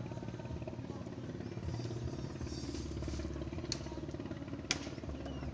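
Small engine running steadily with an even rapid pulse, and two sharp clicks in the second half.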